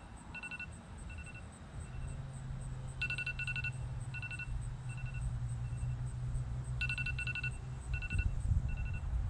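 Electronic countdown timer alarm beeping at the end of its countdown. Each round is a quick run of beeps followed by single beeps that fade, and the round repeats about every four seconds.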